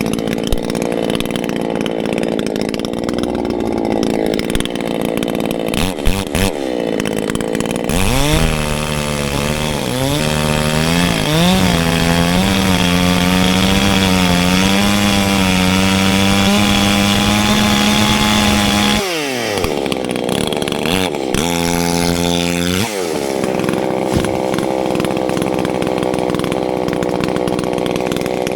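Battery-powered chainsaw running on a dead tree trunk, its motor whine rising and wavering as the trigger is worked and the chain bites. About two-thirds of the way through it stops for a moment, spins up again, and goes back to cutting.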